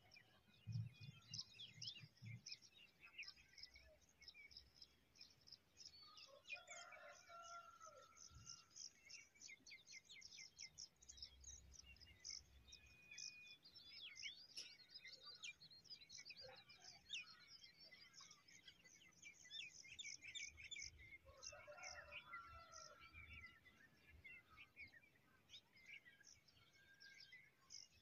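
Faint chorus of small birds chirping: many quick, high chirps overlapping throughout, with a lower call sounding twice.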